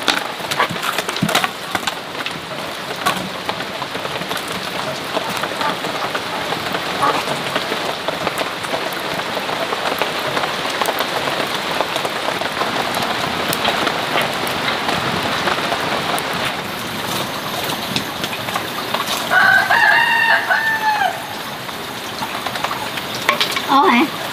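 A rooster crows once, about twenty seconds in, over a steady, even hiss.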